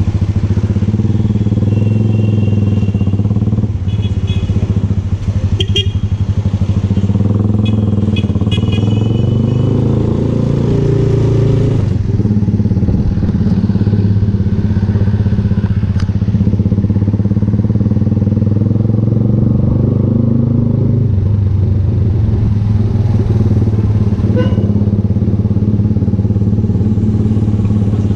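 VLR200 motorcycle engine running at a steady cruise through an aftermarket Devil exhaust muffler, with a few short high beeps between about 2 and 9 seconds in.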